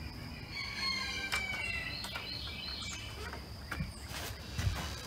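A chicken calling in one drawn-out call of about two seconds, starting about a second in.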